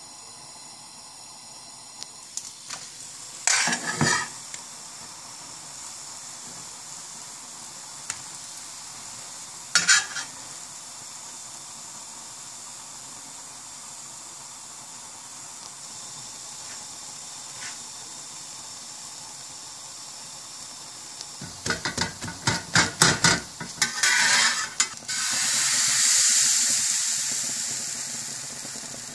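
A thin pancake sizzling steadily in hot oil in a black pan. A metal spatula scrapes and knocks against the pan a few times, with a quick run of clatter about three quarters of the way through. Near the end, batter poured into the hot pan sets off a louder sizzle that slowly fades.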